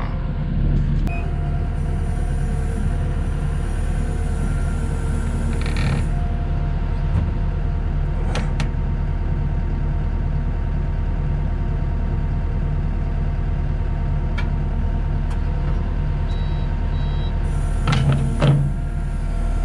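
Skid steer's diesel engine running steadily under load as its forks lift a dump truck box, with a faint hydraulic whine and a few brief knocks.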